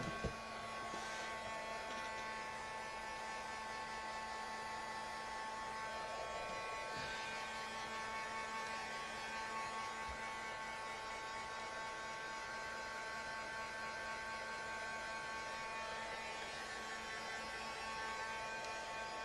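Steady electrical hum made of several constant tones over a faint hiss, with one short click just after the start.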